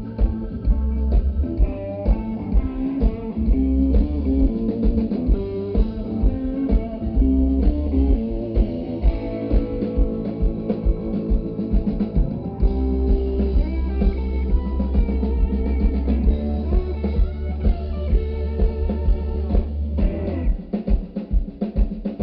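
Live band playing an instrumental passage: guitar over bass and a drum kit keeping a steady beat.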